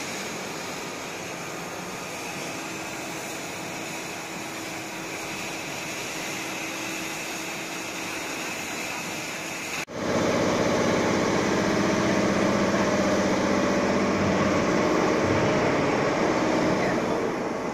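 A CNC gantry cutting machine cutting steel plate, heard as a steady hiss of cutting and shop-floor machine noise. About ten seconds in, the sound cuts off abruptly. It then goes on louder and steady, a machine hum with low tones.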